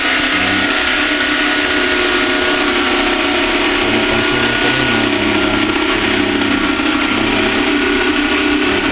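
Electric jigsaw running steadily as it cuts a circular speaker hole through plywood for a subwoofer box.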